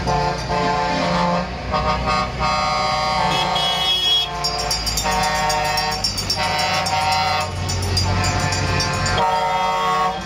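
Multi-tone vehicle air horns sounding in a series of blasts of about a second each, the pitch changing from blast to blast, over the steady low rumble of passing diesel trucks.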